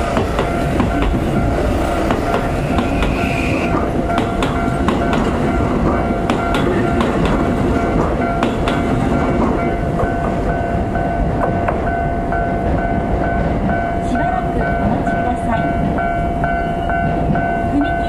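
A Toei Asakusa Line 5500-series commuter train running through a level crossing, its wheels clacking over the rail joints, with the crossing's electronic warning bells ringing steadily. About ten seconds in, the train noise fades as the last car clears, and the ringing bells are left on their own while the crossing stays closed.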